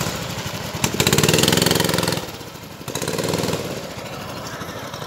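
Small go-kart engines running; the loudest rises and holds in pitch from about one second in, then drops away sharply after two seconds, with a shorter, fainter burst of engine sound around three seconds.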